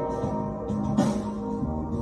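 Electric guitar improvising lines over a fusion backing track with bass and drums, with a sharp drum hit about a second in.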